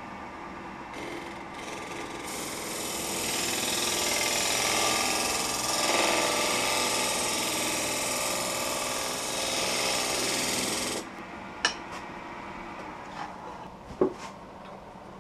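A turning gouge cutting the outside of a spinning Russian olive bowl blank on a wood lathe, a steady hissing scrape of shavings peeling off that builds up over the first few seconds and stops abruptly after about ten seconds. A couple of sharp clicks follow near the end.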